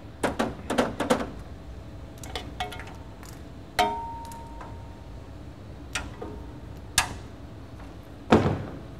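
Scattered clicks and clanks of cable connectors and a screwdriver against a metal equipment rack as its cables are unplugged. There is a quick run of clicks at the start, one clink about four seconds in that rings on briefly, and a duller, louder knock near the end.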